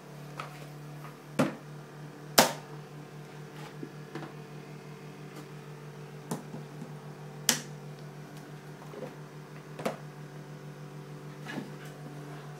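Clip-lock plastic container lid being unlatched, opened and clipped shut: a string of sharp plastic clicks and snaps, the loudest about two seconds in, over a steady low electrical hum.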